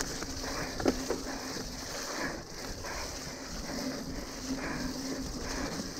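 Mountain bike ridden fast over a wet, muddy dirt trail: the tyres and the rattling of the bike over the rough ground make a steady noise, with one sharp knock about a second in.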